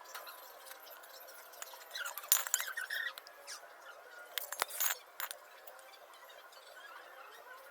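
A few light clinks and knocks, as of small hard objects being handled, in two short clusters about two and five seconds in, over a faint steady hiss.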